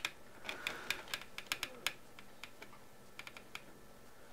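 Scattered light clicks and taps as the power bank's circuit board is handled and its small push button pressed, a few in quick clusters.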